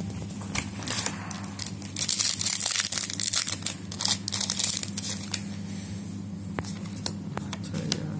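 A trading-card booster pack's wrapper being torn open and crinkled, with cards being handled: a string of crackles and tearing sounds, thickest about two to three seconds in.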